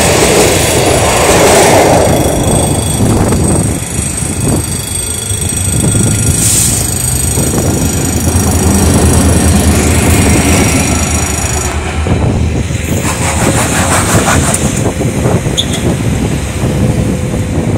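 Electric multiple-unit train passing at close range with rolling wheel noise, followed by a light diesel locomotive with its engine running as it moves over the level crossing.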